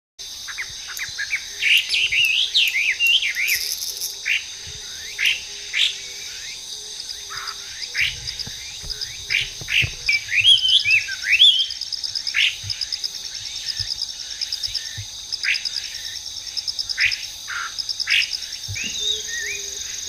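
Chinese hwamei (Garrulax canorus) singing: rapid, varied phrases of whistled notes sliding up and down, coming in loud bursts with shorter notes between them, over a steady high insect drone.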